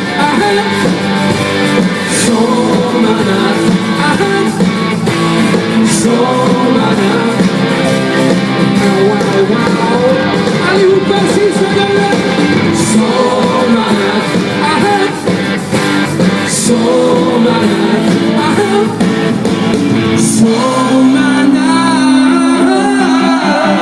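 Live band performing a pop song with singing and electric guitar. About twenty seconds in, the low end thins out.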